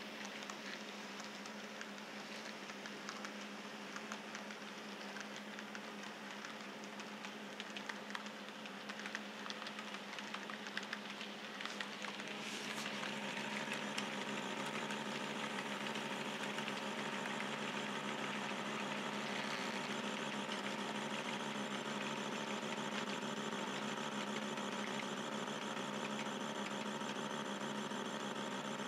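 Model train running on layout track: a steady motor hum with light, irregular clicks of the wheels over the rail joints. About twelve seconds in it grows louder and steadier as the box cars and caboose pass close by.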